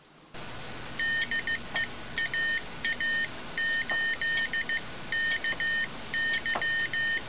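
Morse code sent as short and long beeps over steady radio hiss, the hiss starting just before the code.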